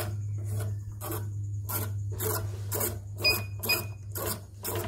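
CNY portable embroidery machine with its covers off, its needle and hook mechanism cycling with a rhythmic rasping scrape about twice a second over a steady low hum. It is an abnormal noise, still to be traced, on a machine with a shifting bobbin-case (sekoci) complaint.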